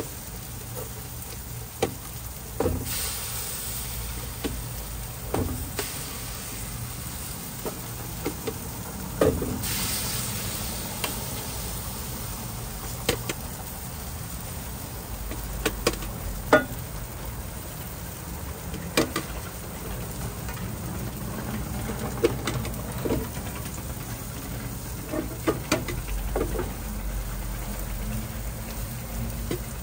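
Toast fillings sizzling on a street stall's flat griddle, with many sharp clicks and knocks over it. The sizzle swells about three seconds in and again about ten seconds in.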